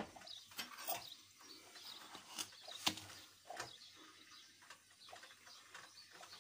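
A few scattered light clicks and knocks of kitchen utensils and containers being handled while a spoonful of yeast is measured out, over a quiet background.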